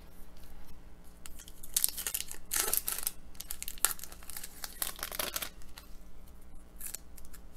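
A hockey card pack's wrapper being crinkled and torn open, in several irregular bursts of rustling and tearing. The loudest comes about two and a half to three seconds in.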